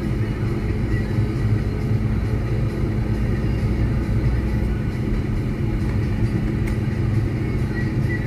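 Car driving on a snow-covered road, heard from inside the cabin: a steady engine hum and tyre rumble.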